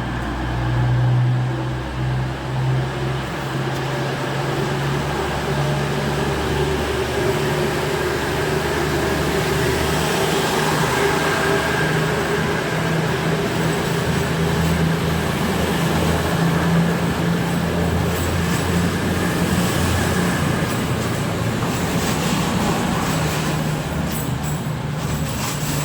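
Diesel engines of an East Midlands Railway Class 222 Meridian multiple unit running steadily as the train moves through the station, with wheel and rail noise building over the second half.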